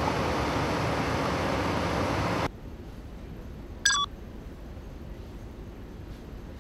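Steady, loud machinery noise of a ferry's cargo deck that cuts off abruptly about two and a half seconds in, leaving a quieter low hum. About a second later a short electronic beep sounds.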